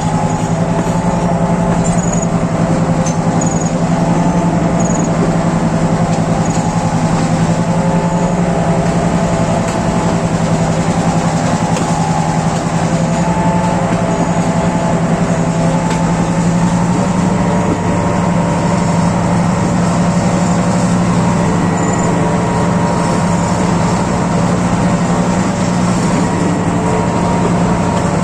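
Class M6 diesel-electric locomotive engine running loud and steady under load, hauling a train, with a slight rise in pitch about halfway through.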